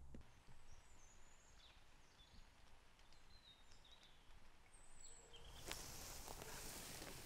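Faint forest ambience: a few quiet, high bird chirps, then a steady hiss with scattered soft ticks that sets in suddenly about five and a half seconds in.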